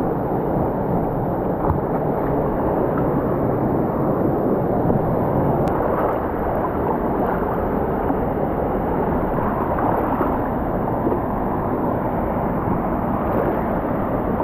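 Steady rush of a mountain river's flowing water.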